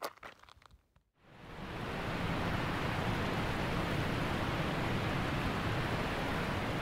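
Water poured in a steady stream from a bottle close to the microphone: a continuous rushing splash that starts abruptly about a second in and holds steady.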